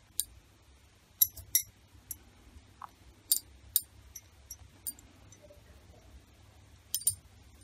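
Light clicks and taps of hands folding and pinching stuffed paratha dough on a marble rolling board, about eight scattered through a few seconds.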